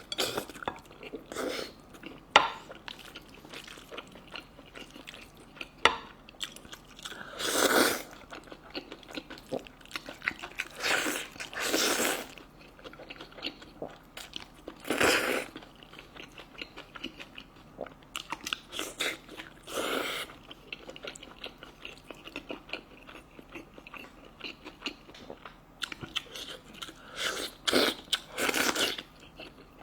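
A person eating close to the microphone: steady chewing and biting with many small wet clicks. Several louder rushing sounds, each about half a second long, come in among the chewing.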